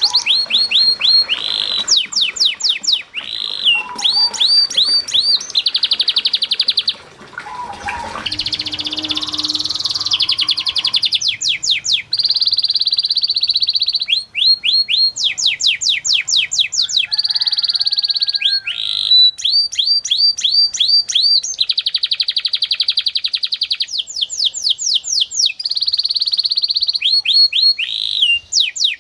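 Domestic canary singing a long, fast song. Rapid trills of repeated rising notes alternate with steady rolling phrases, with a brief pause about seven seconds in.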